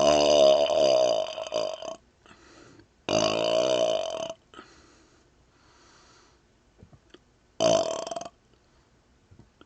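A man burping loudly, three belches: a long one that ends about two seconds in, another of just over a second around three seconds in, and a short one near the end.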